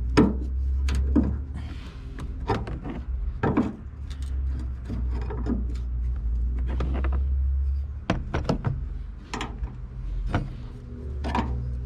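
Irregular clicks, knocks and rubbing of hand work on a car's hood strut and its mounting fittings, about a dozen sharp knocks over a steady low hum.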